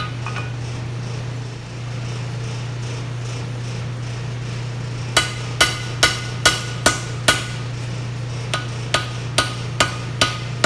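Hand hammer striking a red-hot 5160 steel knife blank on an anvil, each blow ringing, to straighten and define the blade's spine. A run of six quick, evenly spaced blows starts about halfway through, then after a short pause another run starts near the end, over a steady low hum.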